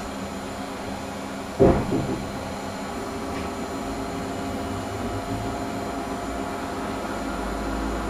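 Steady hum and fan noise from studio equipment in a small room, with one loud thump about one and a half seconds in.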